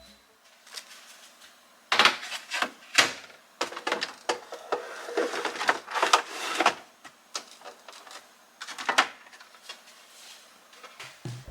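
Plastic containers and packages being handled and set down on shelves: a run of light knocks and clacks, the sharpest about two, three, six and nine seconds in, with rustling between them.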